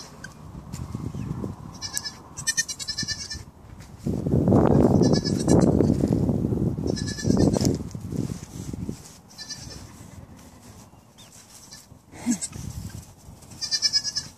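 Newborn goat kid bleating, loudest for several seconds around the middle.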